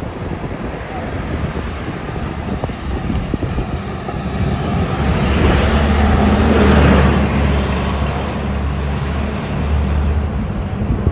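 City traffic heard from a moving taxi: steady road rumble, with a deep engine hum and rushing noise that swell up past the middle and die away near the end.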